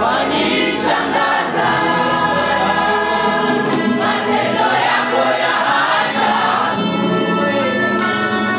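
Mixed choir of men and women singing a Swahili gospel worship song into microphones, with the congregation singing along.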